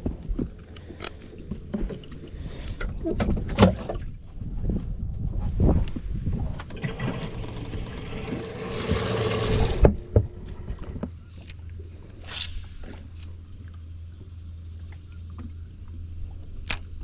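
Knocks and bumps of handling on a bass boat, then a loud rush of noise lasting about three seconds, followed by a steady low hum with a few sharp clicks.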